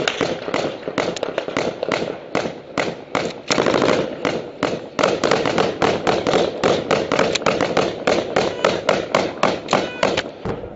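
Rapid, sustained gunfire at close range: rifle shots cracking one after another about three to four times a second, the firing stopping just before the end.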